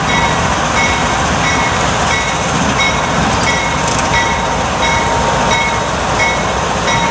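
CSX freight train led by GE diesel locomotives passing close by, the engines and rolling wheels making a loud, steady rumble. A short high ringing tone repeats about every two-thirds of a second.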